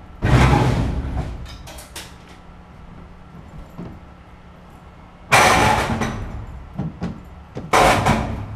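A heavy vending machine being rocked and walked across a storage-unit floor: three loud scraping, grinding bursts, just after the start, a little past five seconds in and near the end, each dying away over about a second.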